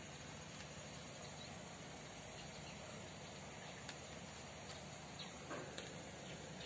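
Quiet background with a steady high hiss, a few faint ticks, and a soft brief scuffle about five seconds in.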